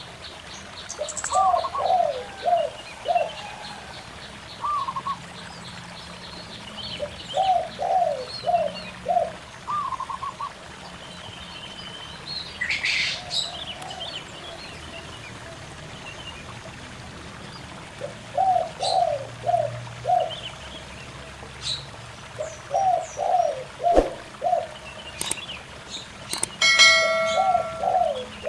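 Zebra doves and spotted doves cooing back and forth in short phrases of three to five notes, over the faint steady babble of a stream. Small birds chirp now and then, and near the end there is a brief higher, ringing call.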